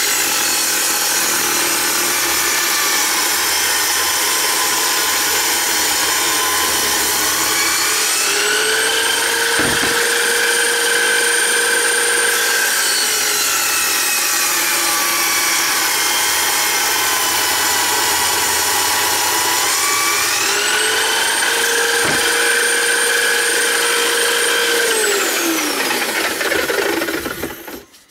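Homemade table saw, an electric drill in a stand spinning a Bosch circular saw blade, cutting through a plywood board. The motor's whine sits lower while the blade is in the cut and climbs back twice when it runs free, then winds down and stops near the end.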